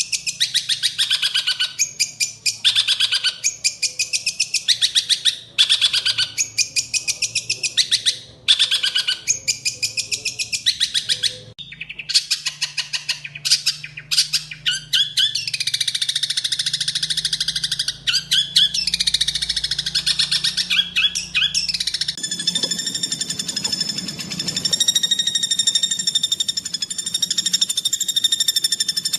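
Greater green leafbird (cucak hijau) singing harsh, rapid 'tembakan' phrases, each about a second long with short breaks, repeated over and over. About two-thirds in, the song changes to a steady, buzzy trill with many tones held to the end.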